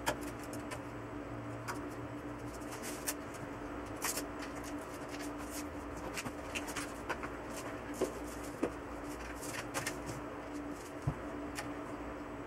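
Scattered light clicks and taps of hands handling an LG LCD TV's metal backlight chassis, its LED strips and test wires, with a few sharper knocks, over a steady low hum.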